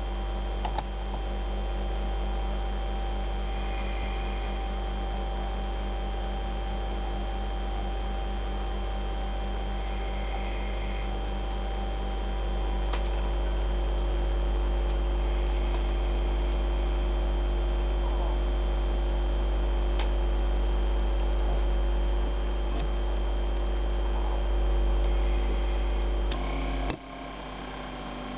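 Steady electric hum from a homemade lathe electric drive, its power supply and motor, with a strong low mains buzz and several steady higher tones over it. About a minute's worth of even running, getting slightly louder partway through; the low hum drops away suddenly near the end.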